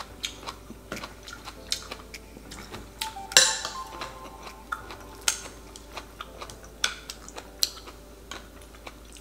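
Chopsticks and a spoon clinking against ceramic bowls during a meal, a string of irregular light clicks; the loudest clink, about three and a half seconds in, rings briefly.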